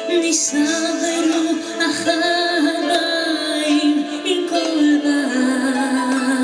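A woman singing live with a band behind her, her held notes wavering with vibrato over keyboard, drums and bass guitar.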